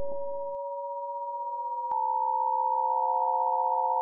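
Steady electronic pure tones held as a drone, stacking into a chord as new tones join one after another. A short click sounds about halfway through as another tone comes in, and the sound gets a little louder there.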